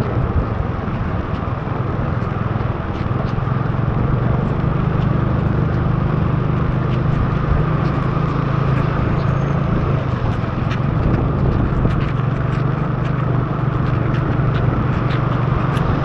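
Motorbike ridden through heavy rain: a steady low drone of engine and wind under the hiss of tyres and rain on the wet road, with scattered raindrops ticking on the camera.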